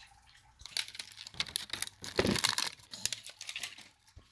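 A toy's packaging crinkling and tearing as it is pulled open by hand: a rapid, irregular run of crackles that starts about a second in.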